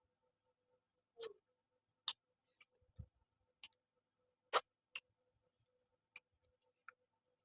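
A person eating: about nine sharp, irregularly spaced clicks and smacks, the loudest about four and a half seconds in.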